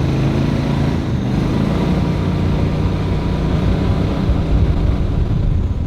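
A motor vehicle's engine running steadily under way, with a loud low rumble.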